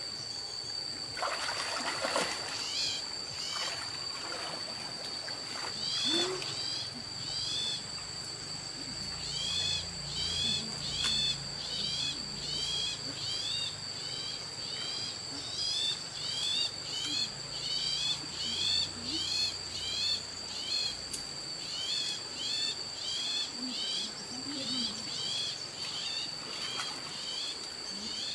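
Night-time insects trilling steadily, with a short chirping call repeating about once a second. A faint low hum comes in through the middle.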